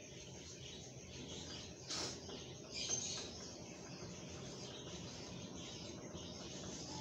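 Tomato masala sizzling and crackling as it fries in oil in a pot, while a metal spoon stirs and scrapes against the pot, with a sharp knock about two seconds in and a louder scrape about a second later.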